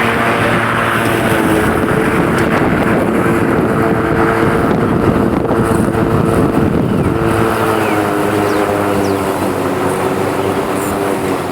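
Remote-controlled Black and Decker electric lawn mower running, its motor and blade giving a steady hum over the rush of the blade cutting through tall grass. The rush grows in the middle, then the hum comes back clearer and a little lower near the end.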